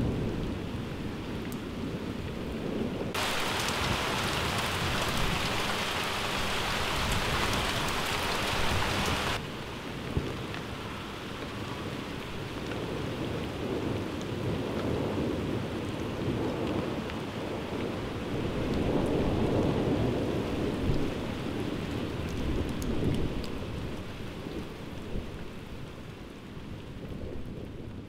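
Thunder rumbling continuously over steady rain. A louder, hissing downpour cuts in about three seconds in and stops abruptly around nine seconds; the thunder swells again past the middle and the sound begins to fade near the end.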